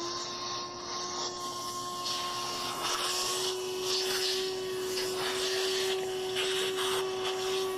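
Wet/dry shop vac switching on and spinning up to a steady whine, running as it sucks wet dirt and cleaner out of a sliding door track.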